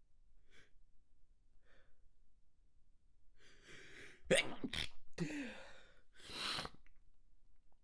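Stifled human sneezes, manually induced: a few short breaths, then a drawn-in inhale building up and two sharp, held-back sneezes in quick succession about four and a half seconds in. A short falling voiced sound and a breathy release follow.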